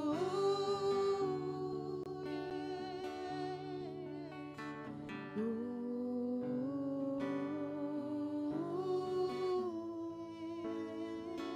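Slow worship music: long, held melody notes over a plucked-string accompaniment.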